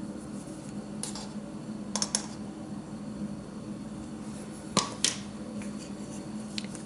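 About five light clicks and taps of kitchenware being handled, over a steady low hum.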